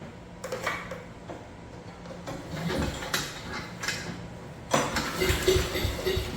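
Chipper shredder's small gas engine being pull-started: a few handling clicks, then about 4.7 seconds in a hard recoil pull cranks it over with rapid chugging that sounds like it wants to fire but does not catch. The engine has sat unused for weeks with old gas in the tank.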